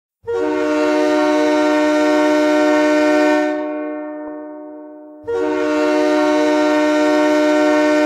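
Train horn used as an ice hockey goal horn, signalling a goal: a long loud blast of several steady tones sounding together that dies away after about three seconds, then a second long blast starting about five seconds in.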